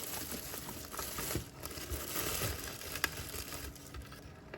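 Paper and packaging rustling and crinkling as an unboxed small appliance's manuals and registration card are handled, with a few light ticks.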